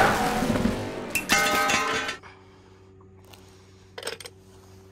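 Cartoon race car sound effects from a film soundtrack: a race car speeding out of a pit stop, its engine and tyre noise fading, with a brief burst of pitched tones about a second in. The sound cuts off about two seconds in, leaving a faint low hum and a couple of light clicks near the end.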